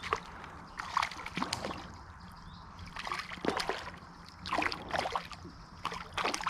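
Irregular splashing and sloshing of water as a small hooked perch thrashes at the surface while being reeled in.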